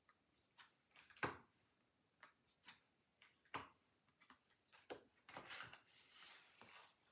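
Thick tarot cards being handled and flipped: scattered soft clicks and taps, then a longer rustle of cards sliding against each other from about five seconds in.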